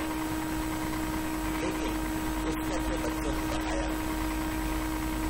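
Steady hiss with a constant low electrical hum from a microphone and sound-system line, with faint, broken fragments of speech in the middle.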